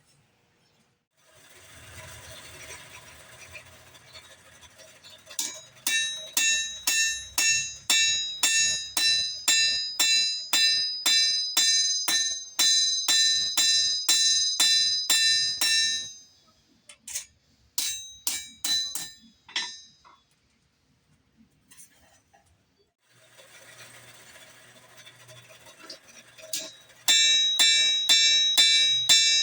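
Hand hammer striking a hot blade on an anvil at about two blows a second, each blow ringing brightly: the edge being hammered onto a Bowie knife blade forged from old buggy spring steel. The hammering comes in two bouts with a short burst between, separated by a steady rushing noise.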